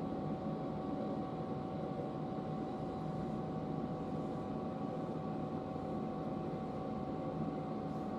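JR Kyushu 811 series electric train running along the track, heard from inside the car behind the cab: a steady rumble of wheels and running gear with a faint steady whine.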